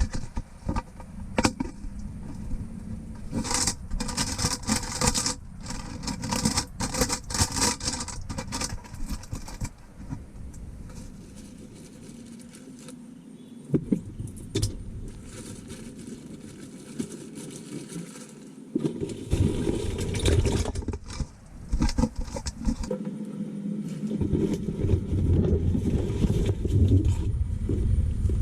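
Splashing and knocks as the camera-fitted fish trap is handled and lowered into the water, then a low, muffled underwater rumble with scattered clicks, heard through the GoPro's waterproof housing.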